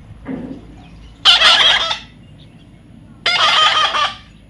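Parrot giving loud, harsh squawks, two in a row about two seconds apart, each lasting well under a second.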